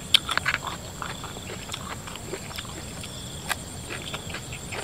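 Close, wet chewing and lip-smacking clicks of a man eating spicy raw shrimp, busiest in the first second and then scattered.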